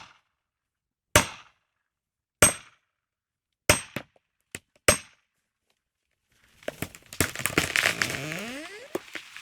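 Sharp ringing metallic blows, evenly spaced about one every 1.2 seconds, with a few quicker ones near the middle. After a short pause, from about six and a half seconds in, a long crackling, crashing clatter follows, in keeping with a tree coming down through branches.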